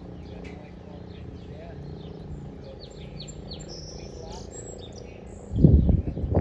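Birds chirping over a steady low hum. About five and a half seconds in, a sudden loud rumble cuts in and stays.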